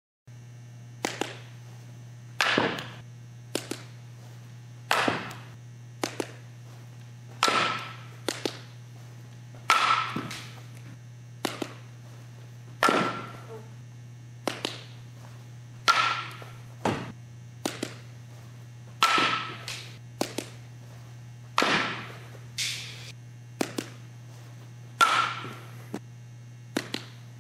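Fastpitch softball bat striking pitched softballs again and again during slap-hitting practice, a loud crack with a short metallic ring about every two and a half seconds, each one preceded by a fainter knock. A steady low hum runs underneath.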